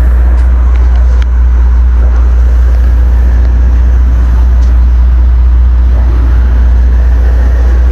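Boat engine running steadily, a loud constant low drone with a hiss of noise above it.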